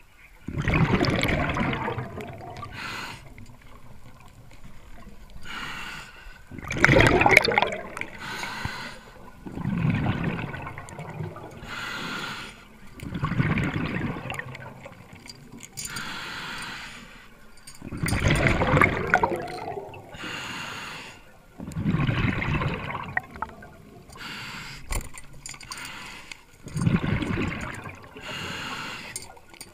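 A diver breathing underwater through a scuba regulator: about seven loud bubbling exhalations, one every three to four seconds, each followed by a fainter, higher hiss of inhalation.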